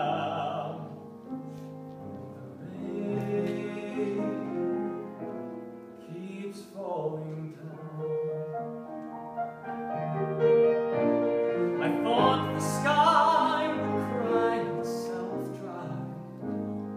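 A young man singing a slow musical-theatre ballad with piano accompaniment, his voice swelling louder with wavering held notes in the second half.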